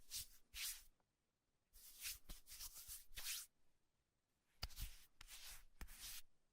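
Faint rustling and scraping of toy pieces and packaging being handled, in three short spells with a few small clicks.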